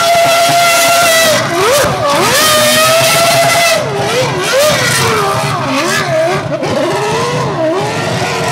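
Red Bull Formula One car's V8 engine screaming at high revs while it spins its rear tyres in doughnuts: held steady for about a second and a half, then dropping and rising again and again as the throttle is worked, over a steady hiss of spinning tyres.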